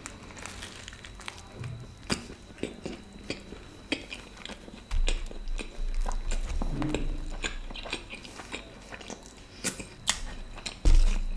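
Close-miked chewing and biting of a pizza slice with a crunchy base: irregular crisp crunches and mouth sounds. A low rumble comes in about five seconds in and again near the end.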